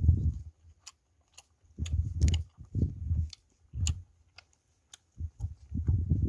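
A person chewing food with the mouth close to the microphone: irregular bursts of chewing with sharp wet smacking clicks, pausing briefly about a second in and again near the end.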